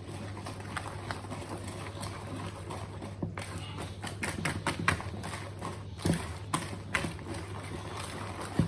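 Irregular light knocks and clicks of kitchen dishes and utensils being handled and set down, over a steady low hum.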